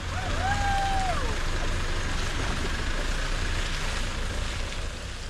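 Mitsubishi L200 pickup truck driving off past at low speed, engine running with a steady low rumble and tyres on dirt and road. A short whistle-like tone rises, holds and falls about half a second in.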